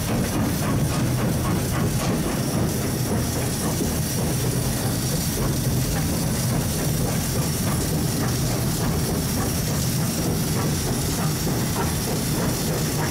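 Footplate sound of Southern Railway S15 class steam locomotive 847 on the move: a steady rumble with wheels clicking over the rail joints.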